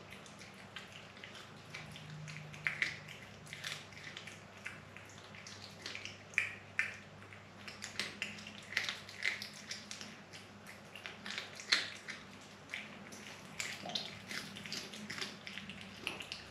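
House cat chewing a mouse: irregular crunches and clicks, several a second and uneven in loudness.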